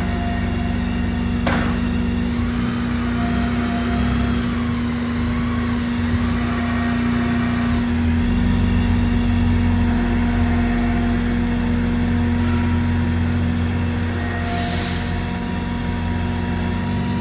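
BMW K1600 bagger's inline-six engine running at low speed as the bike creeps along on its landing-gear auxiliary wheels. A low rumble grows louder in the middle, over a steady hum, with a sharp click about a second and a half in and a short hiss near the end.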